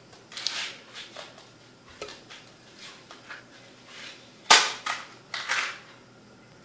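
Plastic CD jewel case and its paper booklet being handled: light rustles and small clicks, then one sharp plastic snap from the case about four and a half seconds in, followed by another rustle.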